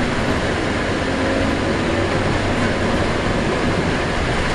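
Scania-chassis Alexander Dennis Enviro 300 single-deck bus under way, heard from inside the passenger saloon: steady engine and road noise with a low hum.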